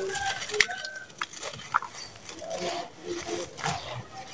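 Dry sand-and-cement lumps crushed and crumbled by hand, a run of gritty crunches and sharp crackles at irregular moments as the dusty chunks break apart.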